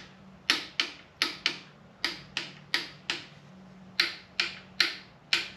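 Ratchet-head torque wrench clicking as the alternator bracket bolts are tightened to about 27 foot-pounds. The clicks are sharp and metallic and come in runs of about four, repeated several times with short pauses between runs.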